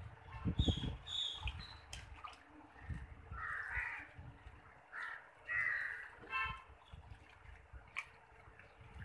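A bird calls several times, in short repeated cries, against the splash and slosh of water as a hand reaches into the fish tank and moves among the dead fish.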